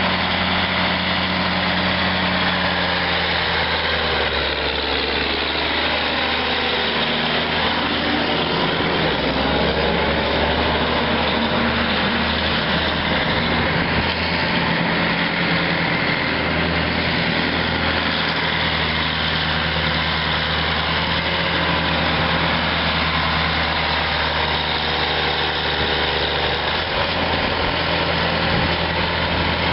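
1983 Steiger Panther CM325 articulated tractor's six-cylinder diesel engine idling steadily.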